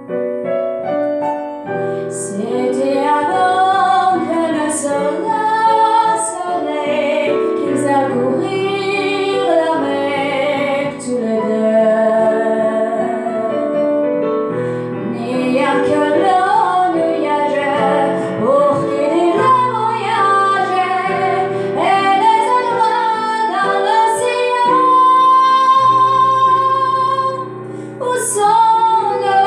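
A young woman singing a song with digital piano accompaniment. A few seconds before the end she holds a long high note.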